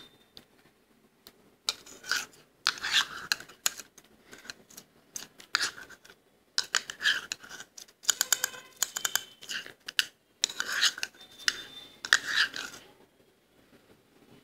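Metal spoon scraping and scooping soft freezer frost in a bowl: gritty crunching scrapes and clicks of the spoon against the bowl, in several runs with short pauses between them.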